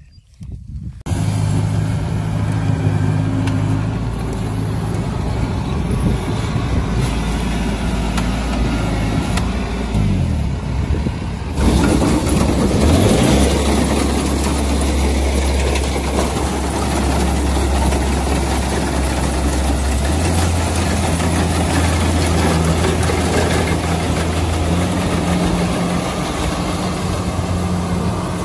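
Rice combine harvester engine running steadily after starting abruptly about a second in, its pitch dipping and rising briefly about ten seconds in and stepping to a new level a couple of times later.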